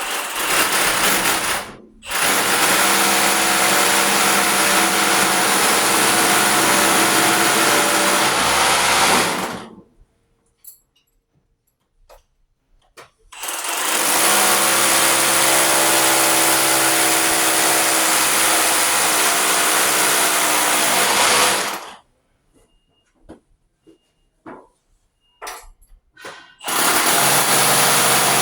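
Hammer drill boring holes in a concrete floor with a masonry bit, pilot holes for Tapcon concrete screws. It runs in a brief burst, then long runs of several seconds each, with pauses between that hold a few small clicks.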